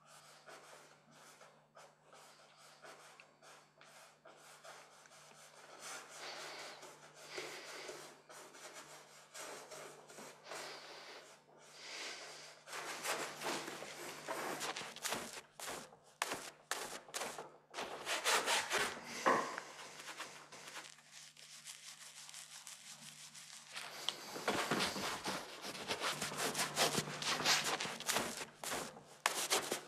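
Paintbrush scrubbing across a stretched canvas in quick, repeated strokes. The strokes are softer at first and grow louder and faster in two spells, about midway and again near the end, over a faint steady hum.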